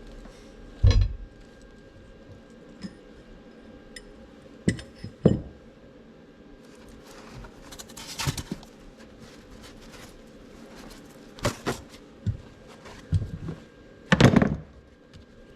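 Metal tools and parts clinking and knocking now and then, about a dozen irregular clanks, as a differential is worked on by hand. A faint steady hum runs underneath.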